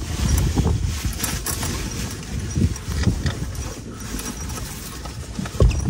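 Rustling and knocking as fabric window blinds are handled and fitted inside a vehicle cabin, with a thump near the end, over a low, uneven rumble of wind buffeting the vehicle.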